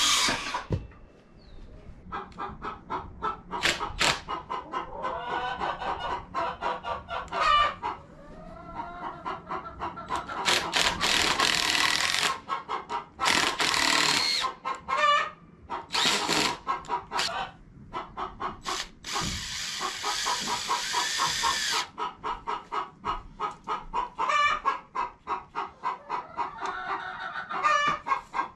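Chickens clucking on and off throughout, a flock of hens making short repeated calls. Several short bursts of noise cut in between about ten and twenty-two seconds in.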